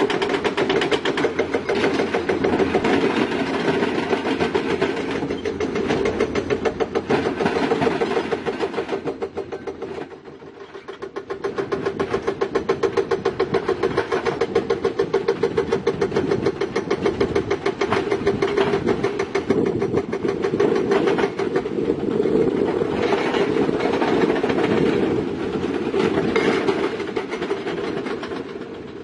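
Heavy diesel earthmoving machinery working, a rapid steady pulsing clatter of engine and machine. It eases off about ten seconds in, then picks up again.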